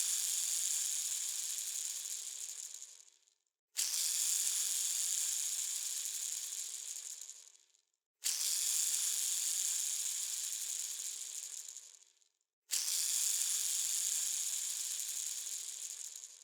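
A ball bearing spun again and again, giving a high, rattly whir. Each spin starts suddenly and fades away over about three to four seconds, with a new spin starting roughly every four and a half seconds.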